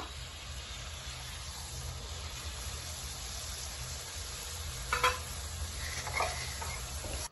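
Batter-coated spiral potato on a wooden skewer deep-frying in hot oil, the oil sizzling steadily as the coating turns crisp. A short sharp tap sounds about five seconds in.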